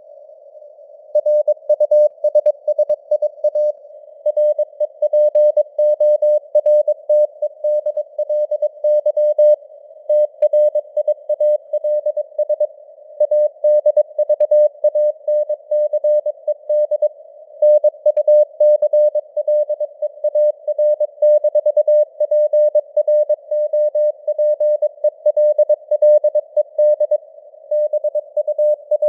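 Computer-generated Morse code sent at 22 words per minute: a steady mid-pitched beep keyed on and off in dots and dashes over a faint hiss of simulated radio noise. The code starts about a second in.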